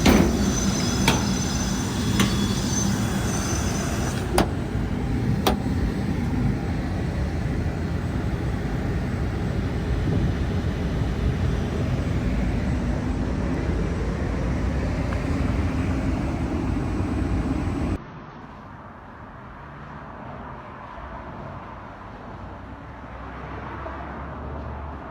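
Air handler supply fan running with a steady loud rush of air, with a few sharp clicks in the first six seconds. About eighteen seconds in the noise drops suddenly to a much quieter low hum.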